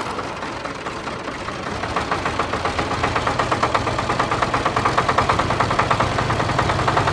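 A small engine or motor running steadily with a rapid, even knock, growing slightly louder about two seconds in.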